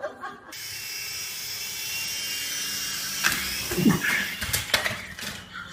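A small battery-powered toy's electric motor whining steadily. In the last couple of seconds it gives way to rougher noise and several sharp knocks and rattles.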